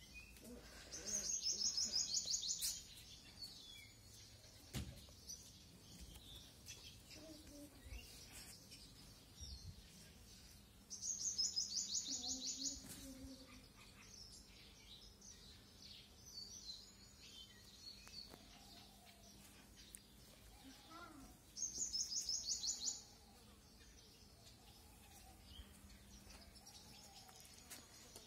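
A small bird singing a fast, high trill in three bursts of a second or two each, about ten seconds apart, with fainter chirps in between.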